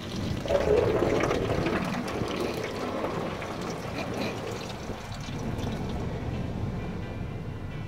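Automatic car wash water jets spraying against the car, heard from inside the cabin: a rushing hiss that swells sharply about half a second in, then runs on steadily.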